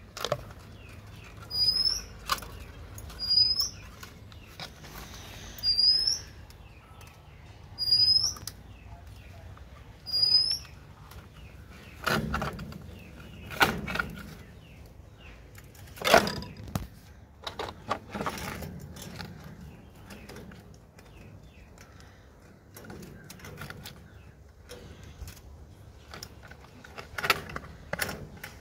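Hands working thin binding wire to tie a plastic feeder trough onto a welded-mesh chicken coop, with the trough and wire knocking against the mesh several times; the sharpest knocks come around the middle. In the first ten seconds, about six short, high, hooked bird chirps sound a second or two apart.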